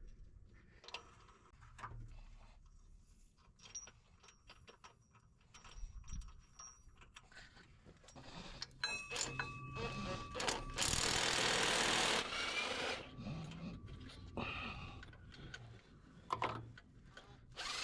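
Hand tools working on bolts in a car's engine bay: scattered metal clicks and clinks of a wrench and ratchet. About eleven seconds in, a loud rushing hiss lasts about a second and a half.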